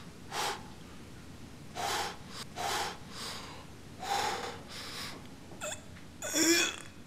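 A person breathing in short, heavy gasps and snorts, about eight breaths in seven seconds, the last with a brief pitched, wheezy edge.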